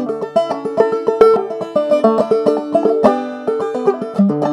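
Banjo played clawhammer style, capoed, in a fast Irish reel: a quick run of plucked notes over a low ringing note.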